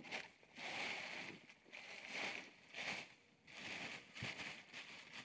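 Blue plastic tarpaulin rustling and crinkling in a series of short bursts as it is pulled and tucked over a load.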